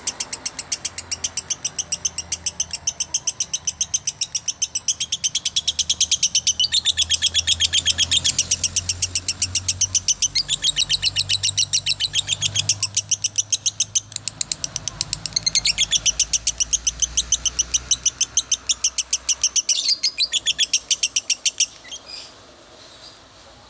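Lovebird singing one long, unbroken chatter of rapid, evenly spaced shrill chirps, the non-stop 'konslet' song that bird keepers prize, which cuts off suddenly near the end.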